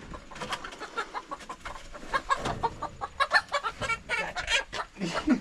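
A chicken being held and handled clucks and squawks in quick, repeated short calls, with rustling.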